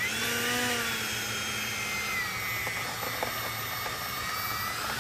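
90 mm electric ducted fan of a Freewing F-16 model jet at takeoff power: a steady high whine whose pitch bends during the first second or so, then holds steady.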